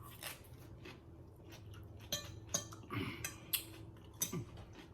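Close-miked eating sounds: chewing with irregular short clicks and smacks, and light clinks of cutlery on a dish.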